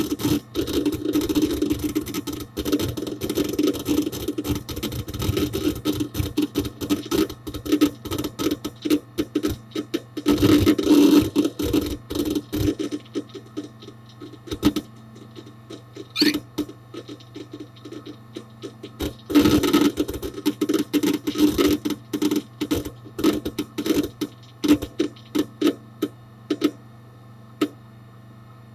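Hard disk drive inside a Dell Dimension 4700 desktop seeking: fast, irregular clicking and chattering from the head actuator over a steady low hum. The busiest bursts come about ten and nineteen seconds in, then the activity thins to scattered clicks and only the hum is left near the end.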